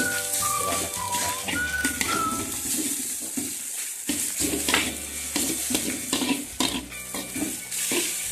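Fried rice and instant noodles sizzling in a wok as a spatula stirs them, scraping and knocking against the pan again and again. A background music melody plays over the first couple of seconds.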